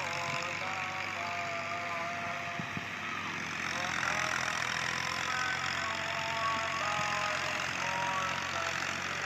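Old Universal tractor's diesel engine running steadily under load as it pulls a rotary tiller (rotavator) through the soil, a little louder from about four seconds in.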